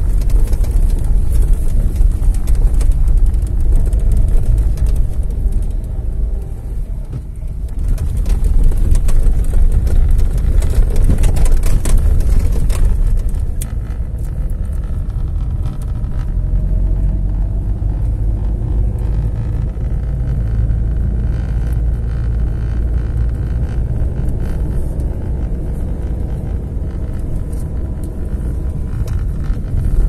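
Car on the move: a steady, loud low rumble of engine and road noise, dipping briefly about seven seconds in.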